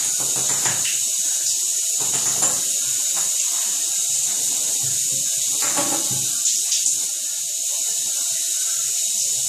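Steady hiss with scattered light taps and clicks of a ping pong ball and a cat's paws in an empty bathtub.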